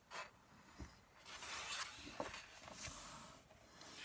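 Pages of a coloring book being turned: faint paper rustling in two swishes, with a few light taps.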